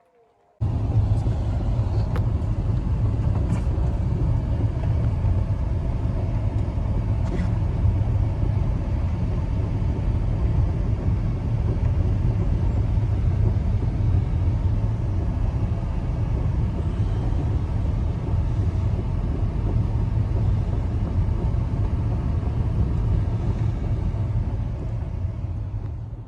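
A steady, loud low rumble with a hiss above it that starts abruptly about half a second in, with a few faint clicks, and fades out at the end.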